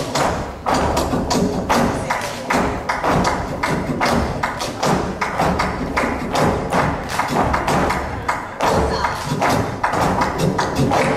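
Flamenco footwork (zapateado): a group of dancers stamping heels and soles on the stage together in a quick, steady rhythm of several stamps a second, over flamenco guitar accompaniment in a jaleo.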